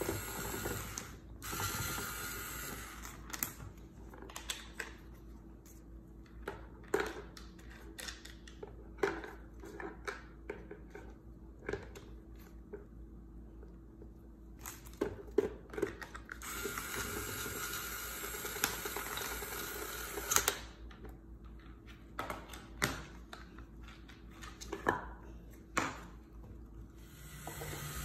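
Plastic toy bolts, nuts and a toy drill clicking and knocking against a wooden toy tool bench's pegboard as they are turned and moved, in scattered irregular clicks. A few stretches of steadier rasping noise last a few seconds each.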